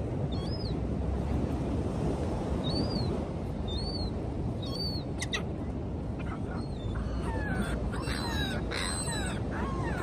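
Seagulls calling: short high squawks every second or so, then a burst of several falling cries near the end, over a steady low rush of wind and surf. A single sharp click comes about halfway through.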